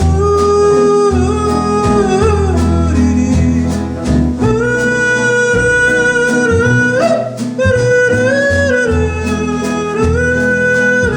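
Country-western music: a long, held, wordless melody line that slides and leaps between notes a few times, over steady strummed string chords.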